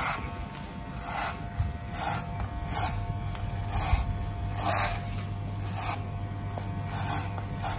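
Electric hair clipper running with a steady hum, cutting hair over a comb with a short rasp on each pass, about once a second.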